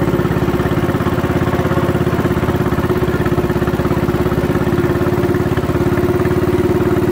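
The engine of a narrow wooden river boat running steadily under way, a fast, even putter at a constant pitch.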